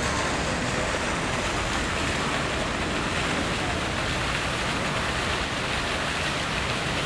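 Steady, even outdoor rushing noise with no rhythm or pitch, at a constant level.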